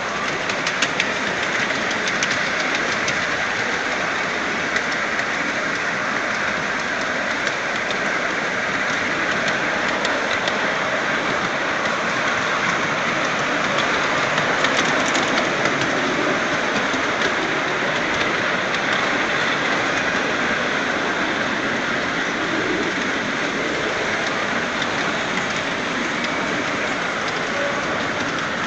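Steady rolling clatter of a 5-inch gauge ride-on miniature train running on its track, heard from aboard the riding car, with a few faint clicks from the wheels over rail joints.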